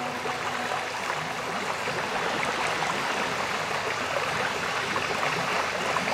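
River water rushing steadily, a continuous even wash of noise.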